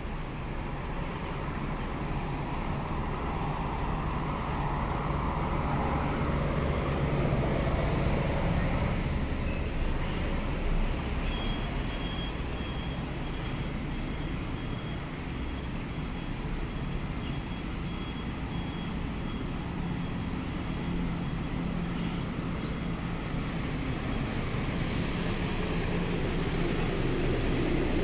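Street traffic with large diesel coach buses running close by: a steady low engine hum. A faint high-pitched beeping comes and goes through the middle.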